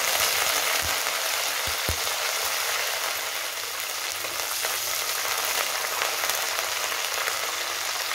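Fresh curry leaves sizzling and spluttering in hot coconut oil in a clay pot, stirred with a wooden spatula. There are a few low thumps in the first two seconds.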